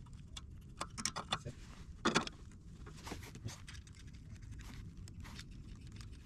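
Scattered light clicks, taps and scrapes of hand work on small engine parts while a replacement carburetor is fitted to a wood chipper's engine. The loudest is a short knock about two seconds in.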